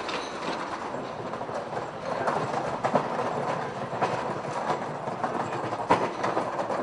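Hand cart's wheels rattling over cobblestones: a continuous clatter of small knocks with a few louder jolts.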